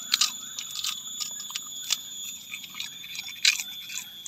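Crispy snack crunching as it is bitten and chewed, in irregular sharp crackles, the loudest about a quarter of a second, one second, two seconds and three and a half seconds in. A steady high whine runs underneath.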